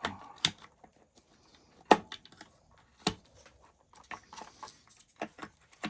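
Sharp clicks and knocks of hard parts being handled as the electronic speed control (ESC) is lifted off an RC truck's chassis. The loudest knock comes about two seconds in, another about three seconds in, and a run of small ticks near the end.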